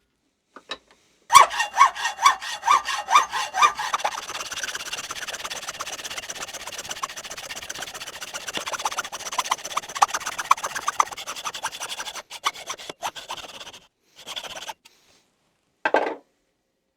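Hand hacksaw cutting through a piece of stock, stroke by stroke. It starts about a second in with slow, distinct strokes, then settles into quicker, steady strokes and stops about twelve seconds in. A few clicks, a brief scrape and a single knock follow.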